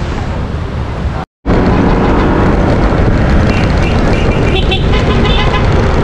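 Steady wind rush and road noise from riding a motor scooter, with the engine running underneath. The sound cuts out briefly just over a second in, and a few short high beeps come near the end.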